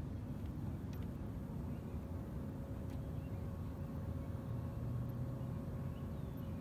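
Steady low outdoor rumble with a faint steady hum running through it.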